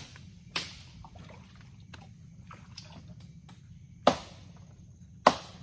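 Sharp knocks of dead mangrove wood being struck and chopped open to get at shipworms: three loud strikes, about half a second in, near four seconds and a second later, with faint ticks between.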